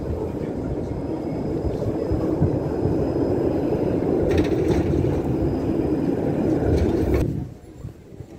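A city tram running past on the rails right beside the walkway, a steady low noise that grows a little louder and then cuts off abruptly about seven seconds in.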